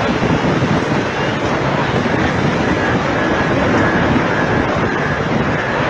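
Storm-force wind blowing hard and buffeting the microphone in a loud, steady rush.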